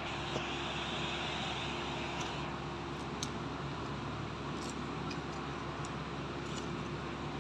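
Steady background hum and hiss, with a few faint light clicks scattered through.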